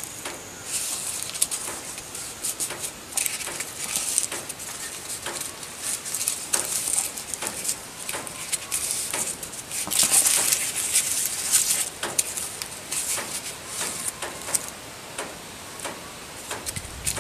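Sheets of paper being handled and folded: an irregular rustle with many small crackles. It is loudest about ten seconds in.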